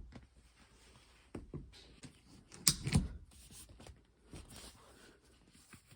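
Aftermarket headrest being fitted onto a car seat: a few scattered knocks and clicks of handling, the loudest about three seconds in.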